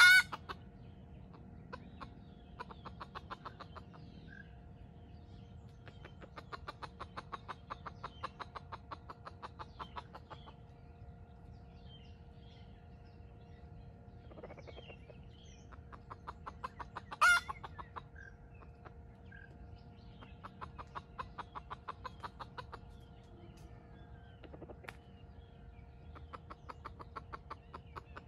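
Red junglefowl rooster calling: a short loud call right at the start and another about two-thirds of the way through. Between them come several runs of rapid, evenly spaced ticking.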